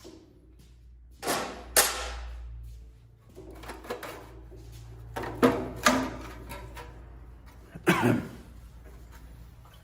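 Tools and engine parts knocking and clanking during work on a garden tractor engine: five sharp knocks, roughly in pairs, over a low steady hum.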